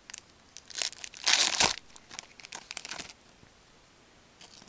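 A 2008 Fleer Ultra hockey card pack wrapper crinkling as it is handled and opened. There is a loud burst of crackling about a second in, scattered smaller crackles after it, and a faint one near the end.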